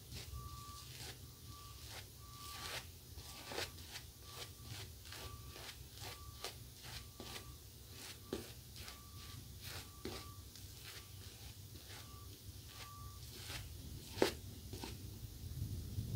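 Double-edge safety razor (Pearl Flexi with a Gillette Winner Stainless blade on its fourth and final use) scraping through two days' stubble under lather, in a run of short, irregular strokes. One sharper click near the end.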